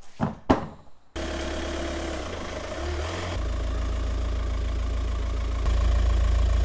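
Two thumps as a tire and wheel are flipped over onto a rubber mat, then, about a second in, a Volkswagen's engine running at idle close by, getting louder in two steps.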